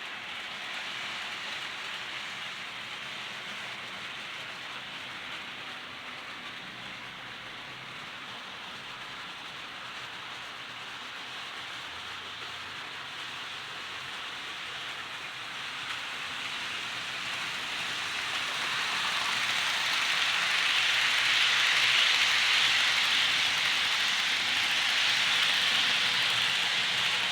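HO scale model train running on its track: a steady hiss of the locomotive's motor and wheels rolling on the rails, growing louder about two-thirds of the way through.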